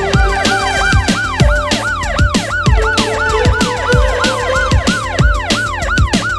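Police siren in a fast yelp, its pitch rising and falling about three times a second, over electronic background music with a steady drum beat.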